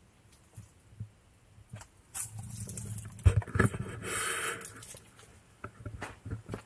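Footsteps scuffing on dirt and loose stones close by, with scattered knocks, a sharp knock about halfway in and a short rustle just after.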